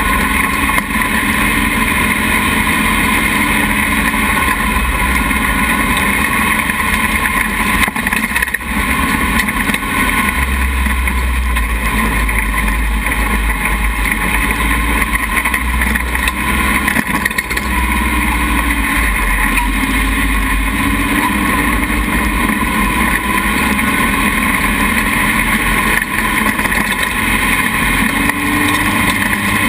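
Dune buggy engine running steadily as the buggy drives over sand, its engine speed rising and falling a little, with wind noise on the frame-mounted camera.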